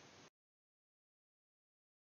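Near silence: a faint trace of room tone for a moment, then the audio cuts to complete silence.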